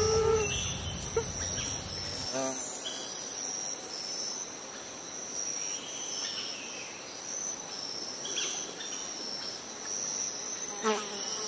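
A chorus of insects trilling in a high, steady pulsing tone, with a few short calls scattered through. A low rumble underneath stops about two seconds in.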